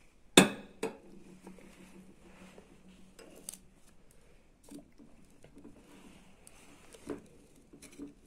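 A small drinking glass set down on a ceramic serving tray with a loud clink and a short ring about half a second in, then a lighter knock. Scattered light clinks follow, ending with a metal knife tapping inside a glass jar of seeds.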